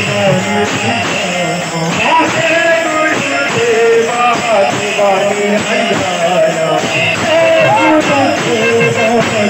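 Devotional kirtan: sung melody over a hand-played two-headed barrel drum (mridanga) and small hand cymbals keeping a steady beat.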